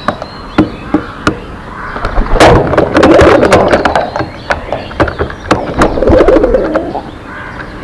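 Pigeons cooing in low, wavering phrases, twice, with many sharp clicks and taps and a faint high bird chirp at the start.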